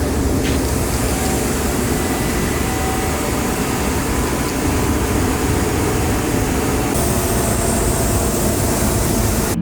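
Turbocharged BMW E36 M3 straight-six running steadily while the car drives on the road, with steady road and wind noise.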